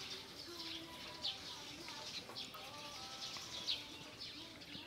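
Small birds chirping: short, high, falling chirps repeated over and over.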